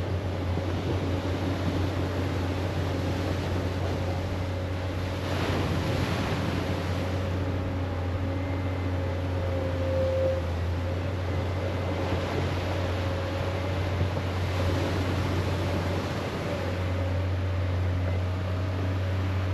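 A steady low engine hum with a faint wavering whine, over surf that swells and washes in a few times.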